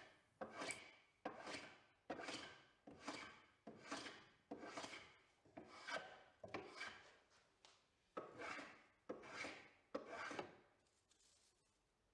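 Steel hand plane taking repeated strokes along a red gum frame moulding, shaving the glued-in pine inlay strip down flush. There are about a dozen quick strokes, and they stop shortly before the end.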